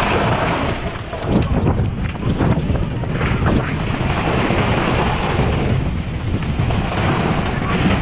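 A rockslide coming down onto a road: a loud, continuous rumble of falling rock and debris, with a few sharper crashes.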